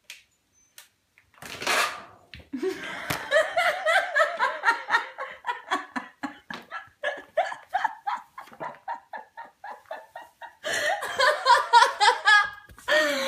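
A person laughing hard in quick repeated bursts, starting about two seconds in, pausing briefly near the end and then breaking out louder again. A short rustling noise comes just before the laughter.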